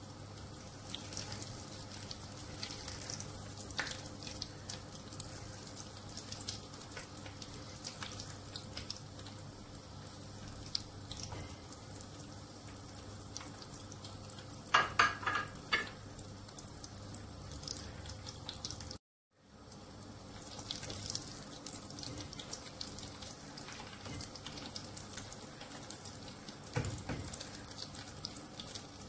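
Breaded potato balls deep-frying in hot oil in a pot: a steady sizzle full of fine crackles. About halfway through there is a short louder clatter as wooden spatulas work in the pot.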